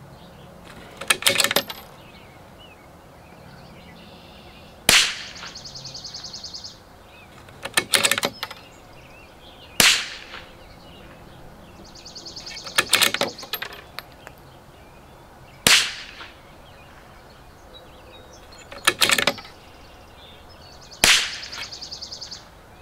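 Tikka T1X .22LR bolt-action rifle firing four single shots a few seconds apart. Between the shots, the bolt being worked makes a quick cluster of sharp metallic clicks.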